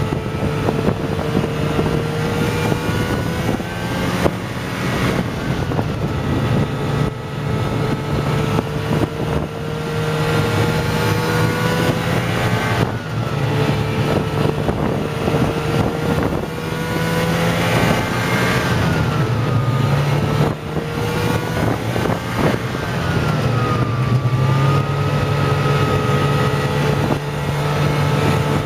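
Snowmobile engine running steadily at trail speed, its pitch dipping and rising again several times as the throttle eases and opens.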